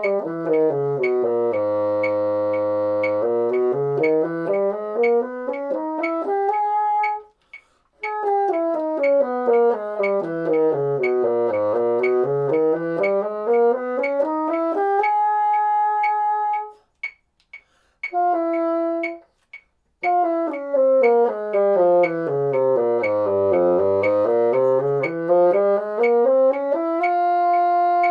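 Moosmann bassoon playing harmonic minor scales from the top: each scale runs down step by step to a held low note and climbs back to a held top note. Two full scales, then a brief single note and a pause before the third scale begins.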